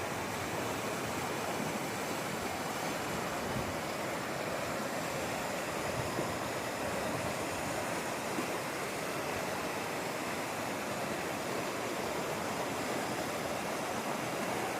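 Rain-fed waterfall cascading down a ravine, a steady rushing of falling water.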